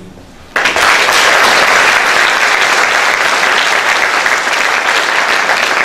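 Audience applauding, breaking out suddenly about half a second in and going on steadily.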